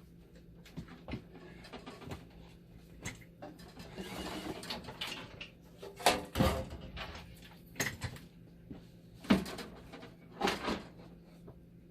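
Clicks, knocks and rustling of hands working inside a dialysis machine, handling its power-supply wiring and parts, with the sharpest knocks about six, nine and ten seconds in.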